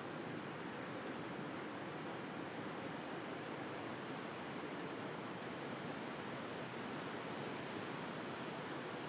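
Steady wash of sea surf, an even rushing noise with no distinct breaks.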